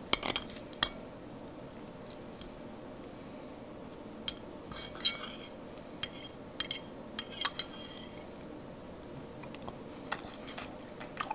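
A metal fork clinking and scraping on a ceramic plate in scattered taps, cutting a piece off a fried fish fillet and lifting it away.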